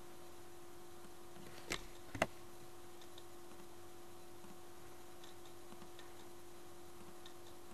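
Two sharp computer mouse clicks about half a second apart, a couple of seconds in, with a few fainter ticks, over a steady low hum.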